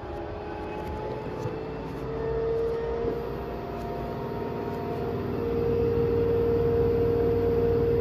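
Front-loading washing machine on its spin cycle: a motor whine over a low rumble, rising slightly in pitch over the first couple of seconds as the drum speeds up, then holding steady and growing louder toward the end.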